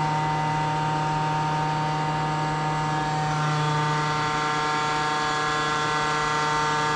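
Steady machine hum, a strong low drone with many higher steady tones over it, from shop machinery running; a few more tones join about halfway through.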